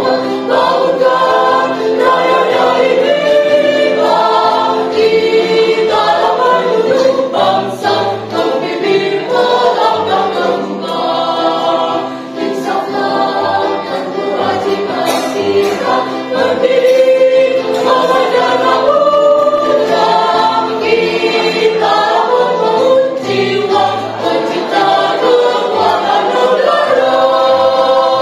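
Mixed choir of men's and women's voices singing a march song together, loud and continuous.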